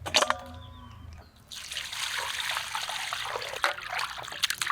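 Water trickling and splashing as chopped chicken pieces are rinsed in a bowl, starting about a second and a half in after a short knock.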